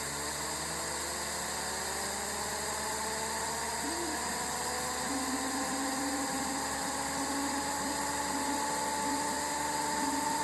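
A desktop turbofan jet engine model spooling up after a restart: a whine rises slowly and steadily in pitch over a steady high whir. A lower warbling tone joins about four seconds in.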